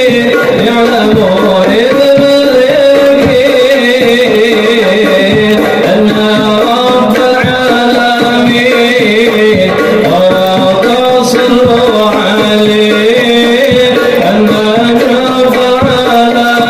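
Hadroh music: Islamic sholawat singing over a steady rhythm of rebana frame drums.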